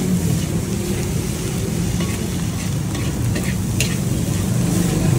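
Fried rice with tripe being stir-fried in a large steel wok: a metal spatula scrapes and tosses the rice against the pan over a steady sizzle, with a few sharper scrapes a little past halfway. A steady low rumble runs underneath.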